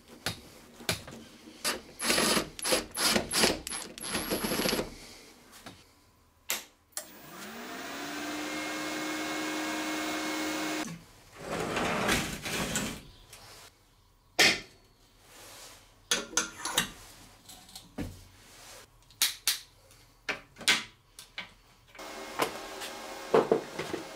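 Workshop handling sounds while a MIG welder is set up: a quick series of short hissing bursts, then a small motor spinning up and running steadily for about four seconds before cutting off, followed by scattered clicks and knocks.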